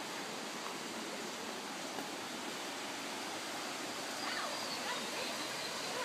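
Steady rushing roar of a waterfall heard through the forest.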